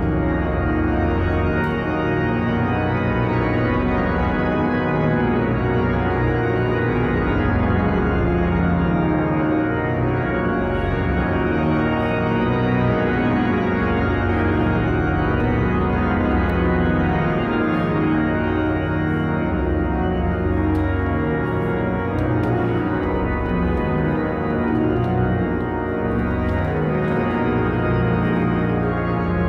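Abbott and Smith pipe organ playing slow sustained chords over a deep pedal bass, sounding through a large stone church.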